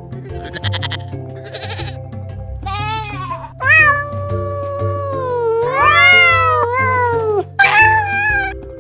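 A run of pitched animal calls over soft background music: a few short calls, then one long call held for about four seconds that dips and rises in pitch, and a final short wavering call near the end.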